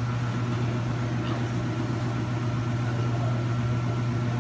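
Speed Queen top-load washer running its spin cycle at full speed: a steady low hum with no change in pitch.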